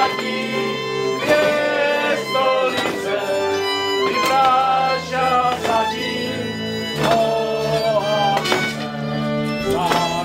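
Moravian folk string band playing a dance tune: fiddle melody over sustained bass notes, with sharp strikes mixed in.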